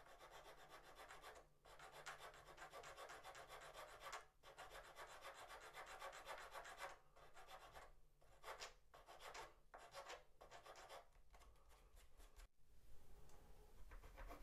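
Hand file scraping along the soft wooden edge of a model ship's stern, shaping its curve. It is a steady, quiet rasping that breaks into separate short strokes, about two a second, in the second half, then stops abruptly near the end.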